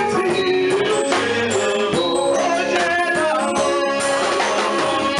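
Live church worship music: men singing into microphones over an amplified band with drums and hand percussion keeping the beat.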